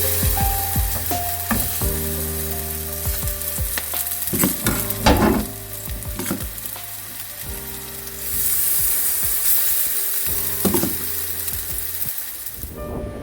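A steady sizzling hiss with scattered clicks and knocks, louder at the start and again in the second half, over soft background music.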